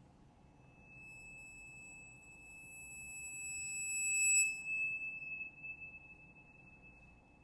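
Tibetan finger cymbals (tingsha) sounding one high, pure ringing tone. It swells over a few seconds, drops its upper overtones suddenly about four and a half seconds in, then fades slowly with a slight wavering.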